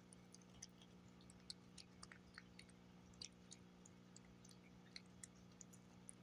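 Tabby cat chewing and licking meat paté off a glass plate: faint, scattered small clicks of chewing over a steady low hum.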